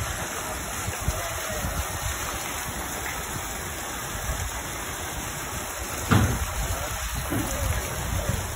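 Water from pipes and jets pouring and splashing steadily into a koi pond, with a low rumble underneath and a brief thump about six seconds in.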